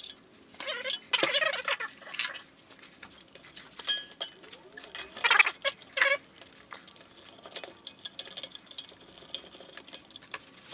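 Metal engine parts and tools clinking, tapping and scraping as a Briggs & Stratton engine is being taken apart by hand; sharp clinks come irregularly, loudest about five and a half seconds in.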